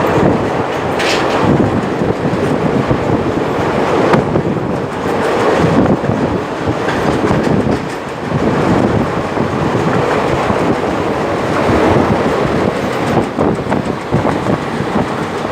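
Train running on rails: a steady, loud rumble with wheels clattering over the track.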